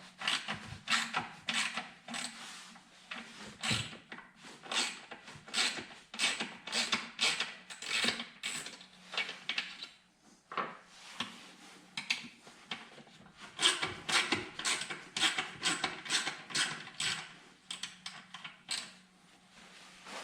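Irregular clicking and light metallic clatter of hand tools being used to unbolt and remove a throttle body from an engine intake, several clicks a second with a short pause about halfway.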